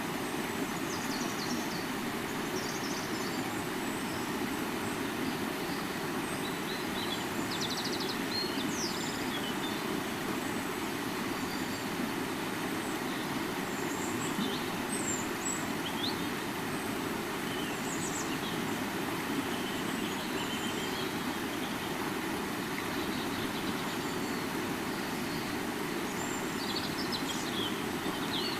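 River water flowing in a steady, continuous rush, with small birds chirping briefly and faintly now and then.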